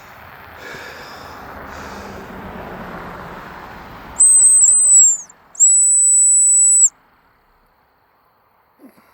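Bronze ACME silent dog whistle blown twice as a recall call to a dog, about four seconds in. The first blast is a high, piercing tone of about a second with two quick dips in pitch, and the second is a steady held tone of just over a second.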